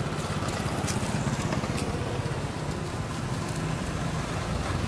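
A motor vehicle's engine running steadily, a low rumble, with a few faint clicks about one and two seconds in.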